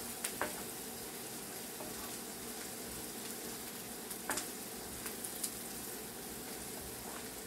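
Oil sizzling steadily in a pan as garlic, ginger and chili powder fry in it, with a few light clicks near the start and again about four and five seconds in.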